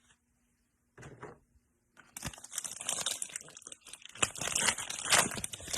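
Trading card pack wrapper being torn open and crinkled by hand: a faint rustle about a second in, then a dense stretch of crackling and crinkling that stops near the end.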